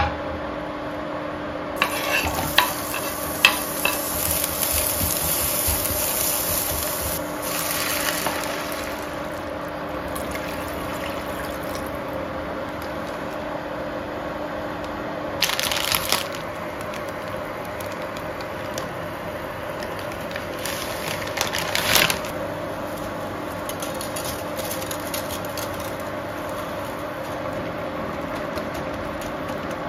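Onions frying in butter in a pan on an induction cooktop, with a few sharp utensil knocks near the start. A steady low hum runs underneath, and two brief noisy bursts come later on.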